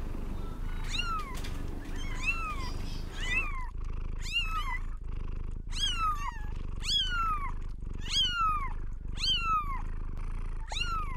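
A cat meowing over and over, about one high-pitched meow a second, each rising then falling in pitch, over a steady low purr.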